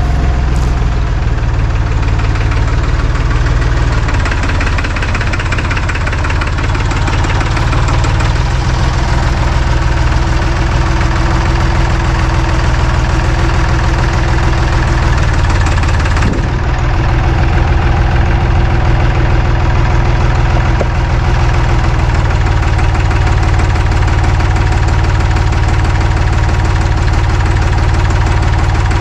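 A vehicle engine running steadily, with a short break in the sound about 16 seconds in before it carries on.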